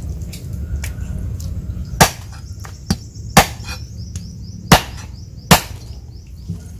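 A knife chopping raw chicken into pieces on a chopping board: four sharp, loud chops starting about two seconds in, roughly a second apart, with a lighter knock between the first two.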